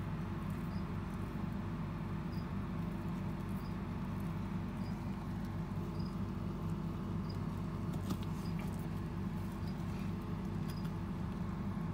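A steady low hum with several even tones, with faint short high peeps about once a second and a few light clicks over it. No cockroach hissing stands out.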